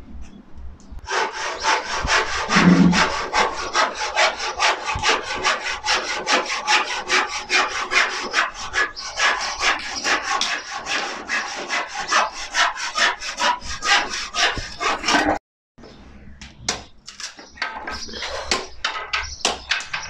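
Handsaw cutting through pine wardrobe boards in fast, even back-and-forth strokes, about four a second. After a sudden break near the end come a few scattered knocks of wood.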